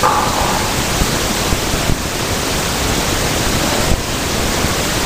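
Steady, loud hiss across the whole range of pitch: the recording's own noise floor, with no words over it.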